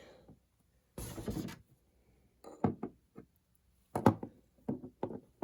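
Handling noise from an opened plastic radio-control transmitter being moved on a work surface: a brief scrape or rustle about a second in, then a few light clicks and knocks, the sharpest about four seconds in.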